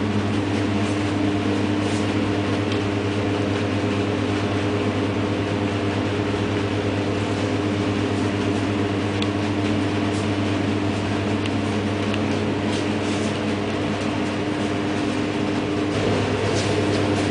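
Blower door fan running steadily, holding the building at a pressure difference for an air-tightness test: a constant, even hum.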